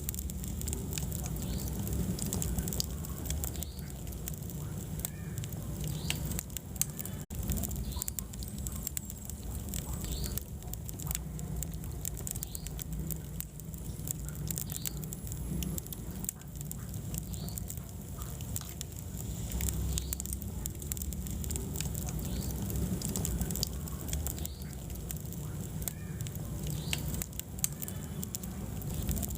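Wood fire burning in a fireplace: a steady low sound of the flames under frequent, irregular sharp crackles and pops from the burning wood.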